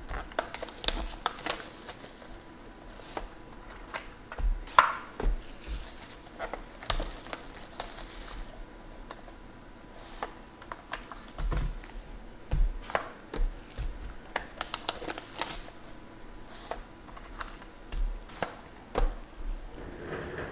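Hands handling trading card boxes and foil packs on a tabletop: irregular knocks and taps, with rustling of plastic wrap.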